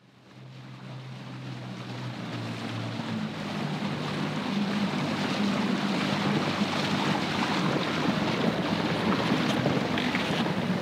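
Small motorboat's outboard motor running at speed, a steady drone, with water rushing past the hull and wind on the microphone. The sound fades in from silence over the first few seconds.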